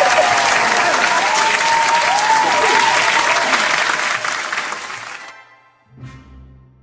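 Applause over faint music, fading out about five seconds in, then a brief low note near the end.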